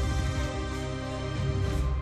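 Intro theme music: sustained chords over a deep bass, with a short rising swish near the end.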